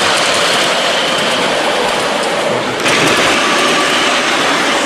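Ride-on miniature railway train with a BR Class 31-outline locomotive running past close by: a steady, loud rolling rush of wheels on rails. The sound shifts abruptly about three seconds in.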